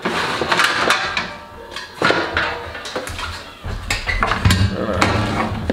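Clatter and knocks of a metal baking pan being fetched and handled over a tiled kitchen counter: a run of short sharp knocks throughout.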